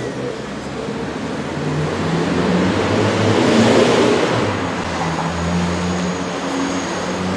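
Hydraulic pump of a radio-controlled Liebherr 944 model excavator whirring, its hum shifting in pitch as the boom and arm move, with a broad scraping swell about three to four seconds in as the bucket digs through the soil.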